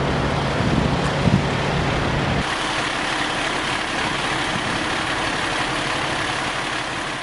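Road traffic noise with an engine idling underneath; a couple of seconds in, the engine hum drops away abruptly, leaving steady traffic noise.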